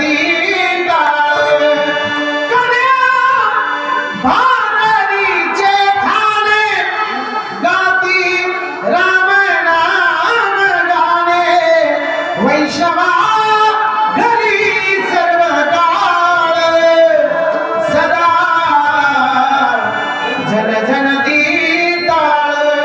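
Devotional kirtan singing: a solo voice holding long, gliding, ornamented notes over a harmonium accompaniment.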